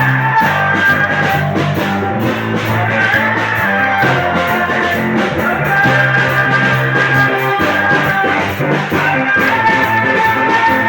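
Praise and worship music from a church band, with a steady beat, bass line and guitar under long held melody notes.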